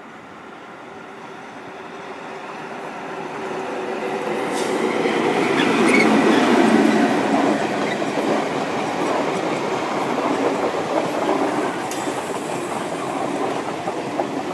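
WAP-4 electric locomotive and its passenger coaches passing close by. The wheel-on-rail noise builds as the train approaches, is loudest about six seconds in as the locomotive goes past, then carries on steadily with a few sharp clicks as the coaches roll by.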